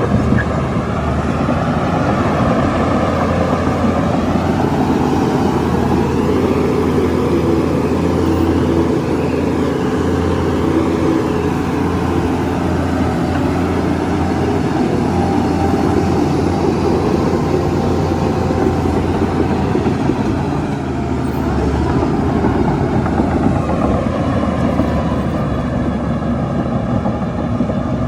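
Heavy diesel earthmoving machinery running steadily under load, with a constant low engine hum and the pitch drifting up and down as the load changes.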